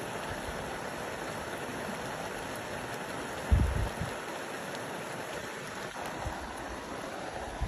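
Steaming geothermal hot spring vent: an even rushing, hissing sound of hot water and steam, with a brief low thump about halfway through.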